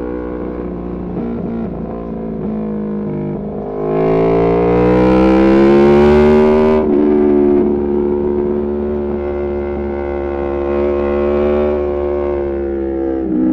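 Aprilia Tuono V4 Factory's V4 engine through an Arrow GP2 exhaust with the dB killer removed, running on track. It runs steadily, then about four seconds in the throttle opens and the pitch climbs for about three seconds until a gear change cuts it off sharply, after which it runs on steadily at a lower pitch.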